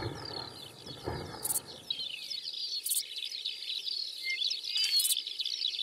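Outdoor ambience of many small birds chirping, a dense twittering of short high calls. Two soft low thumps come in the first second or so.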